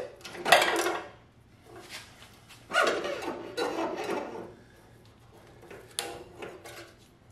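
Motorcycle front fork tube being worked down out of its triple clamps: two long stretches of metal scraping and rubbing, then a sharp click near the end with a few lighter ticks.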